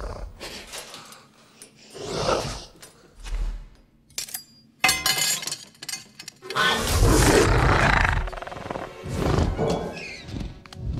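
Film soundtrack: a steel ladle drops and clatters on a tiled floor about five seconds in, ringing briefly, over the film's score, with loud velociraptor snarls following.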